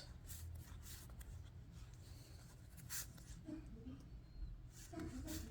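Faint rustling and sliding of trading cards being handled, in a series of brief scratchy strokes.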